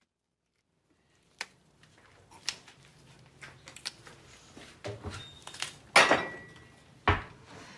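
Fresh green beans snapped by hand, one sharp snap about every second, starting about a second and a half in, with the pieces clicking into a bowl; the loudest snap comes about six seconds in.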